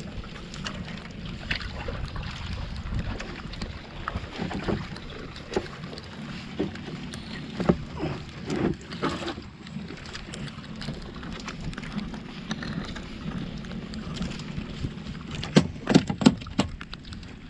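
Steady wind and water noise aboard a small wooden outrigger fishing boat, broken by scattered knocks and thumps on the hull and deck. A quick cluster of sharper knocks near the end is the loudest part.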